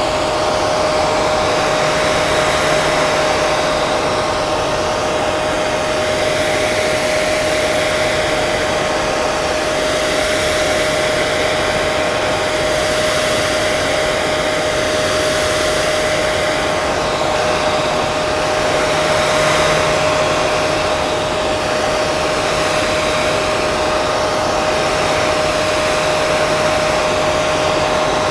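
Electric hair dryer running continuously: a steady rush of blown air under a constant motor whine.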